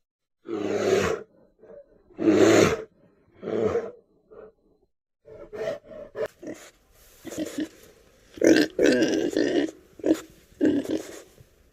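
A brown bear growling three times in the first four seconds, then a run of short grunts and squeals from wild boar piglets through the rest.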